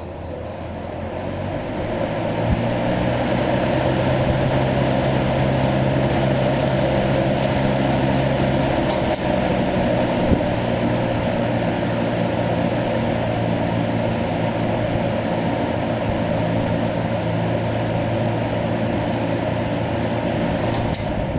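Late-1950s Lasko 20-inch box fan running: its motor hums under a steady rush of air from the blades. It spins up over the first couple of seconds, holds steady, and eases off near the end as it is switched off.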